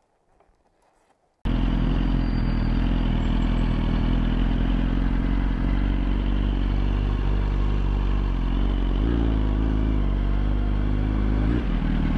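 A sport motorcycle's engine running steadily while it is ridden at low speed, heard from on board, with wind and road noise over it. The pitch shifts briefly about two-thirds of the way in and again near the end. The first second and a half is near silence.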